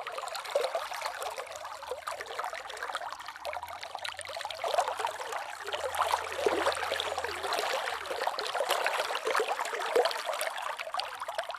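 Slow river water flowing and trickling, a steady babble full of small splashes and gurgles.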